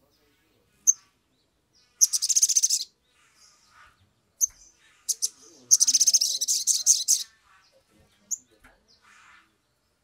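Male olive-backed sunbird calling: single high chips and two fast, very high trills, a short one about two seconds in and a longer one around six to seven seconds, with a few scattered chips between.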